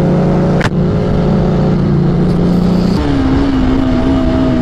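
Motorcycle engine running at a steady pitch while riding, with a single sharp click under a second in. About three seconds in the sound jumps abruptly to a different, slightly wavering engine note.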